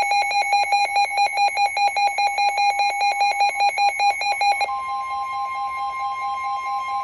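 Weather-alert radio sounding an alert: rapid electronic beeping. About four and a half seconds in, NOAA Weather Radio's steady 1050 Hz warning alarm tone starts as the beeping drops back. The alarm announces an incoming severe thunderstorm warning.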